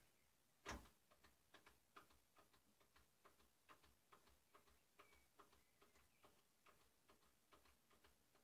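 Faint, fairly even clicking, about three or four clicks a second with a stronger click about a second in, as a hand works a part on the side of a Samofa marine engine that is not running.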